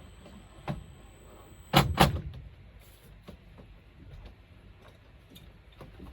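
A knock, then two loud knocks close together about a second later, followed by scattered light taps and clicks.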